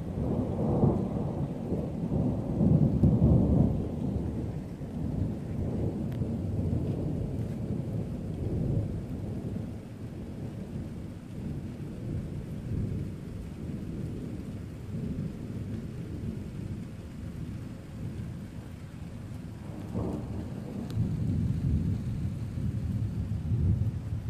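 Thunder rumbling in long rolls over steady rain, loudest in the first few seconds and then dying down, before a new peal starts suddenly about twenty seconds in and rolls on.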